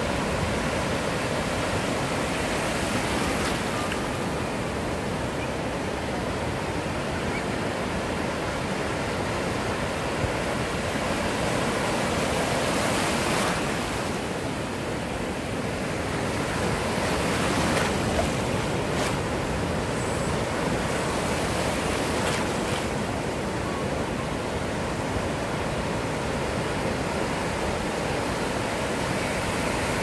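Ocean surf on a beach: a continuous rush of waves breaking and washing in, swelling slightly a couple of times.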